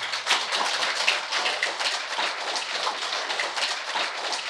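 Audience applauding: many hands clapping at a steady, even level.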